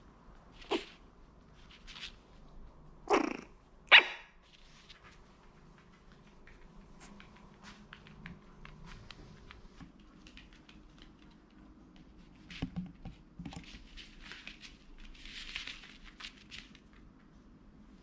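Maltese puppies making short, sharp vocal sounds, the loudest about three and four seconds in, followed by softer grunting and scuffling as they play.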